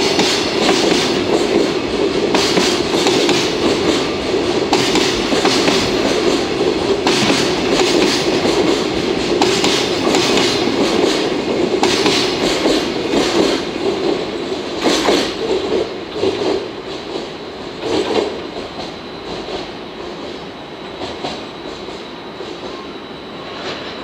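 Freight train's container wagons rolling past on steel rails, the wheels clacking over rail joints at regular intervals of about two and a half seconds. The rumble fades in the last third as the end of the train goes by.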